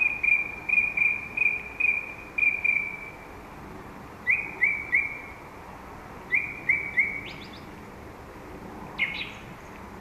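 Song thrush singing, repeating each short phrase several times: a quick run of about eight alike notes, then two sets of three, then a single higher note near the end.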